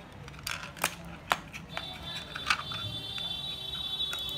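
A few sharp plastic clicks and taps from handling a Logitech B175 wireless mouse on a laptop lid. A thin, high, steady whine comes in about halfway through.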